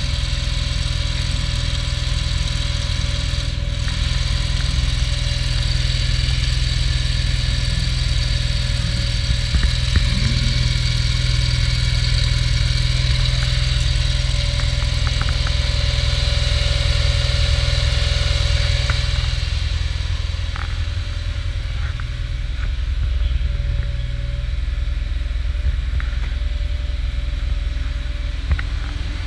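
Air-cooled flat-six of an early Porsche 911, on carburettors, idling steadily with no revving. The sound becomes a little quieter and duller about two-thirds through.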